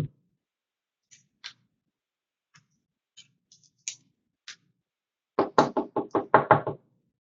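A thump, a few faint light clicks, then a quick run of about nine knocks on a hard surface, roughly six a second.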